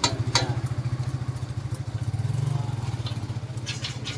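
Vehicle engine idling with a steady, fast low putter that swells briefly about halfway, with two sharp knocks near the start and a few lighter clicks near the end.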